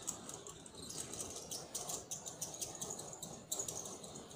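A wax-canvas balcony rain guard being hauled up by its cord: irregular rustling of the canvas rolling up, with quick small clicks and short high squeaks from the cord running through its fittings.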